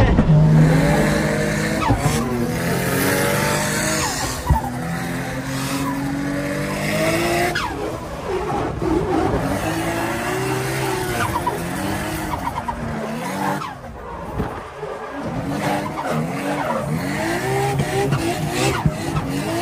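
Drift car's engine heard from inside the cabin, revving up and down over and over as the throttle is worked through a slide, with tyres squealing and skidding.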